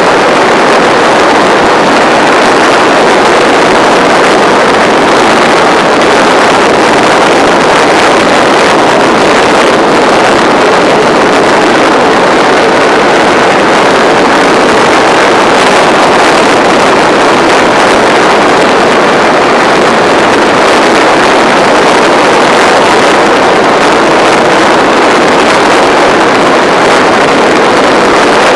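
Racing motorcycle engine running hard at high revs, heard from an onboard camera mounted on the bike, under heavy wind rush on the microphone. It is loud and steady, with no let-up.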